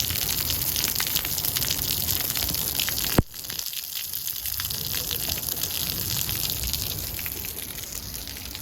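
Heavy rain and hail pelting down, a dense hiss full of small sharp hits. About three seconds in there is one sharp click, and after it the downpour sounds quieter.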